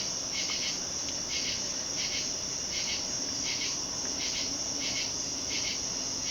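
Insects calling: a steady high trill with a regular chirp about every three-quarters of a second.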